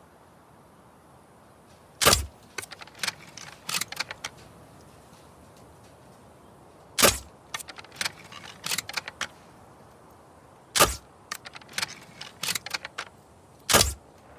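Crossbow shots: four sharp snaps, each followed by a second or so of lighter mechanical clicks and rattles.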